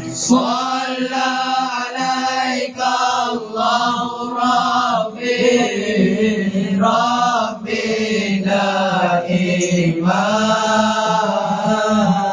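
Boys' vocal group singing a Malay qasidah unaccompanied into microphones. A lead voice sings long, ornamented phrases over a steady low drone held by the group.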